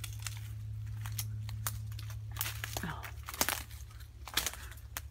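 Footsteps crunching and snapping through dry leaf litter and twigs, with several sharp cracks between about two and a half and four and a half seconds in, over a low steady rumble.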